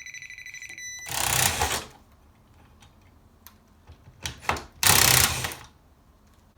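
Non-contact voltage tester beeping in a fast pulsing high tone, signalling that it senses live voltage, which stops within the first second. Then come two loud short bursts of noise, each under a second long, about three and a half seconds apart.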